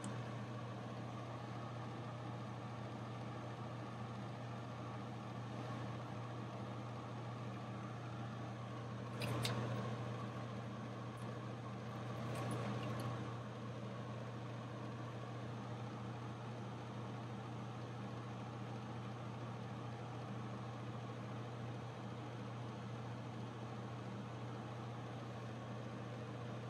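Steady low hum over an even hiss from the paint booth's running equipment, with two brief soft handling sounds about 9 and 12 seconds in.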